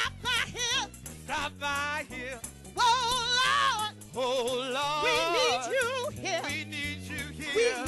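Live gospel music: sung runs with heavy vibrato, without clear words, over a bass line that steps from note to note.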